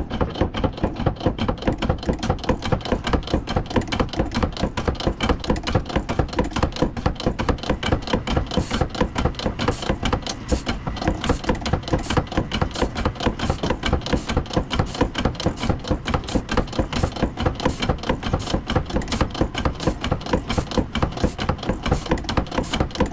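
Wood-Mizer BMT150 band saw blade tooth setter running, a steady, even rhythm of sharp clacking strokes as it indexes the sawmill blade tooth by tooth and presses each one. It is unsetting over-set teeth, bending them back in to close the set down to about 20 thousandths.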